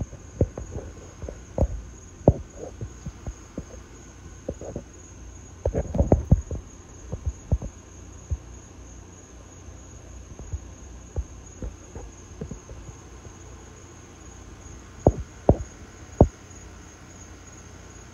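Irregular low thumps on the microphone, bunched in three clusters, over a steady high insect trill such as crickets.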